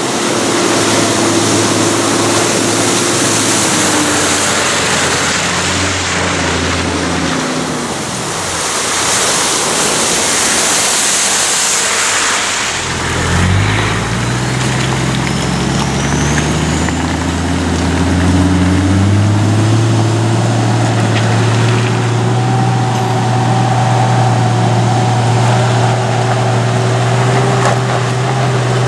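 Toyota Landcruiser 80 series four-wheel drive engine working in low range over a muddy, rough track. The revs fall away, then pick up again about halfway through and settle into a steady pull. A few seconds of rushing noise about a third of the way in.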